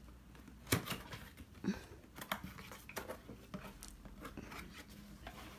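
Cardboard product box being opened and handled: irregular rustles of the flaps and paper packing, with a few sharp clicks and taps.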